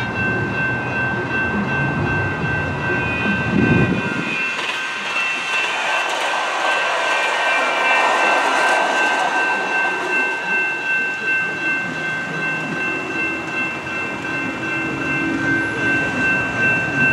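General Signals Type 2 electronic crossing bells ringing steadily throughout while a two-car CAF light rail train rolls through the crossing, its passing noise strongest in the middle seconds. A low rumble underneath stops suddenly about four seconds in.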